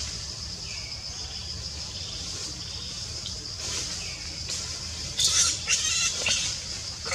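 Steady high-pitched buzz of forest insects, with faint short calls early on and a cluster of loud, sharp squeals about five to six seconds in from an infant long-tailed macaque.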